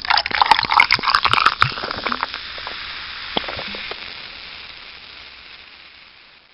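A glass of fizzy drink fizzing. It begins as a dense crackle of bursting bubbles, then thins to a soft hiss that fades away over about six seconds.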